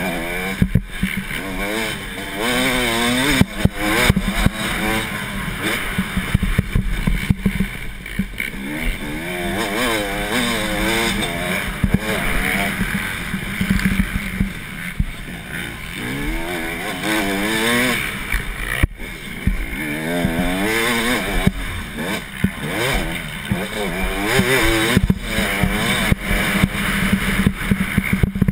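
Motocross bike engine running hard around a dirt track, its pitch rising and falling again and again as the rider opens and closes the throttle, heard from a helmet-mounted camera. Sharp knocks are scattered throughout.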